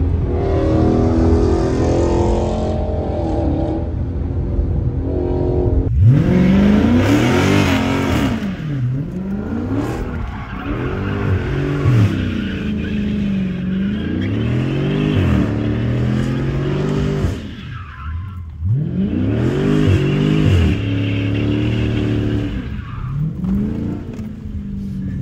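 Dodge Challenger Scat Pack's 392 HEMI V8 running steadily, then from about six seconds in revved hard up and down again and again in rising and falling sweeps, with tyre squeal as the car slides.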